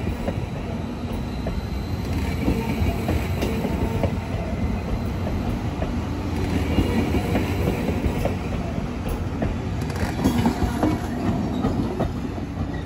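Caltrain Stadler KISS electric multiple unit rolling by, a steady low rumble with wheels clicking over the rail joints; a steady electric hum comes in near the end.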